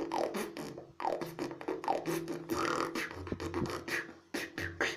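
Female beatboxer performing: rapid mouth-made snare and hi-hat clicks and low kick-drum thumps over a steady hummed tone.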